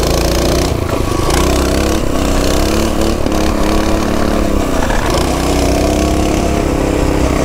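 Mini bike's small engine running as it rides over a gravel trail, its engine speed dropping and then picking back up about five seconds in.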